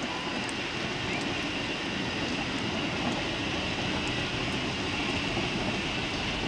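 Steady, even noise of a narrow-gauge train drawing away into the distance, with no distinct beats.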